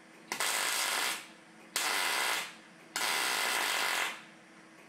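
MIG welder tacking steel roll-cage mounting plates to a car's body shell: three separate bursts of arc crackle, each about a second long.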